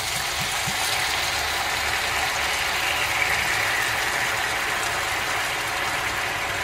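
Apple cider poured into a hot frying pan of sautéed mushrooms, sizzling steadily as the liquid bubbles and starts to reduce.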